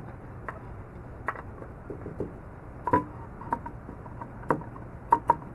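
A screw being turned by hand into a wooden board with a multitool's fold-out screwdriver: scattered irregular clicks and creaks as the bit turns and is re-gripped, the sharpest pair near the end.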